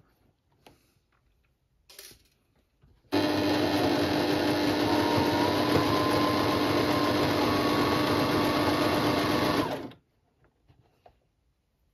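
Sewing machine running at a steady speed, stitching a straight seam through cushion cover fabric. It starts about three seconds in, runs for about seven seconds and stops suddenly.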